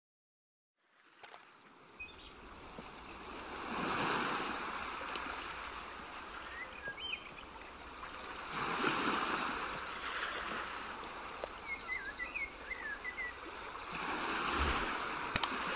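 Nature ambience laid under the screen recording: water washing in slow swells about every five seconds, like waves on a shore, with birds chirping and trilling over it. A few sharp clicks come near the end.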